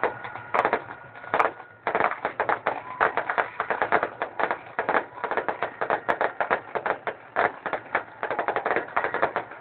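Fireworks going off: a rapid, irregular run of cracks and pops from bursting shells, growing denser about two seconds in.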